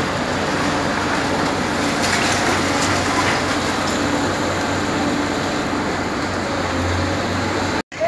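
A demolition excavator's diesel engine runs steadily while concrete and brick rubble crumbles and falls. The sound cuts out abruptly for a moment near the end.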